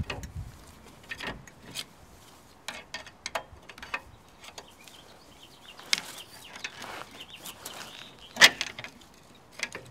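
Flat-blade screwdriver prying a rusty rear brake caliper off its bracket on a Mercedes ML350: scattered short metal clicks and scrapes, with one sharper click near the end.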